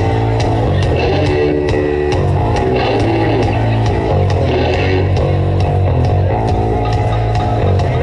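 Rock band playing live through a PA: electric guitars, bass guitar and drum kit with a steady beat, in an instrumental passage without singing.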